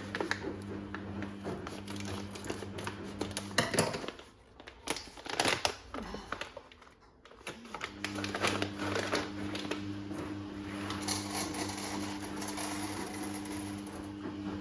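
Steady electrical hum of a kitchen appliance that cuts out a little under four seconds in and starts again about four seconds later, with light clicks and clatter of things being handled throughout.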